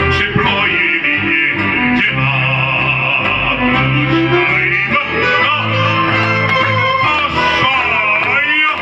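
A man singing a slow song into a microphone, with guitar accompaniment. Near the end he holds a note with vibrato.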